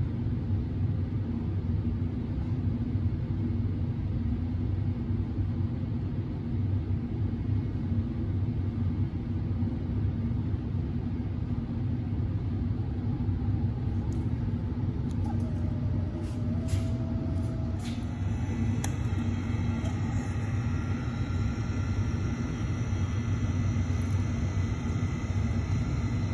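A Caframo overhead stirrer, used as a high shear mixer, runs at speed, set up to 2500 RPM while it mixes an additive into asphalt binder. It makes a steady low hum, and a higher steady whine joins it about two-thirds of the way through.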